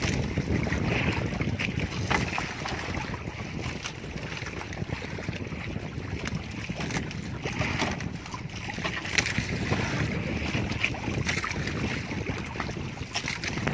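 Wind buffeting the microphone over sloshing, splashing water.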